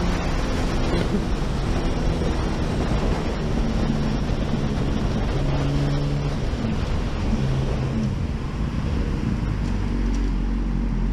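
Loud wind rushing over the camera on a Honda CBR sportbike at high speed, with the engine's note underneath shifting up and down in pitch as the rider changes speed.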